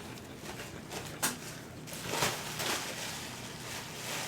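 A person chewing a chicken-tender sandwich with wet mouth sounds, and a sharp smack about a second in.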